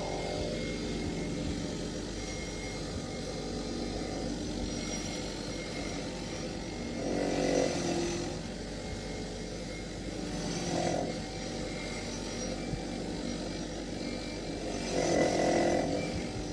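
A workshop machine's motor running steadily. Its pitch falls right at the start, and it grows louder for a moment three times, about a third of the way in, about two thirds in, and near the end.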